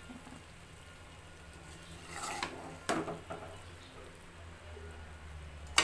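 A metal spoon stirring thick cooked taro stolons in a metal pot, with a few scrapes about two and three seconds in and a sharp knock of spoon on pot at the end, over a low steady hum.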